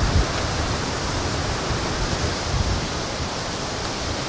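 Wind blowing across an outdoor microphone: a steady hiss with uneven low buffeting that comes and goes.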